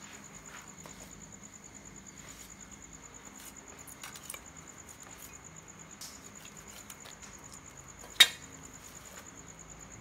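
A cricket trilling steadily, high and evenly pulsing, over small clicks and scrapes of a knife cutting meat from a pig's head. About eight seconds in comes one sharp, loud knock.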